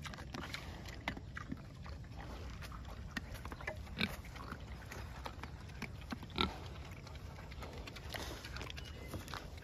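Pigs feeding at a feeder: faint grunts and chewing with scattered short clicks. One brief, slightly louder sound comes about six seconds in.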